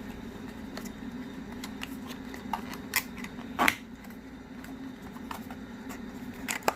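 Handling noise from unboxing gimbal accessories: scattered light clicks and taps of plastic parts and packaging, with a louder knock about three and a half seconds in, over a steady low hum.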